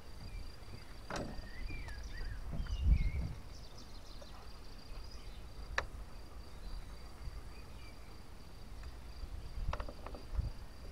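A steady high-pitched insect buzz with a few bird chirps in the first few seconds, over low bumps and knocks on the boat as a pike is handled in a landing net; the loudest bump comes about three seconds in.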